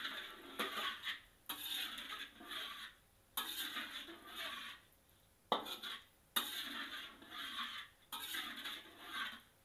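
Metal spatula stirring a thin curry sauce in a wok, scraping against the pan in a series of strokes about a second long with short pauses between them.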